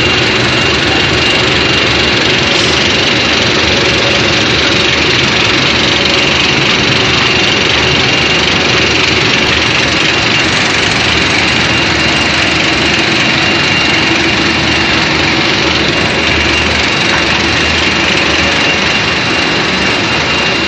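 Puffed corn snack extruder line running at full production: a loud, steady mechanical drone with a constant high-pitched whine on top.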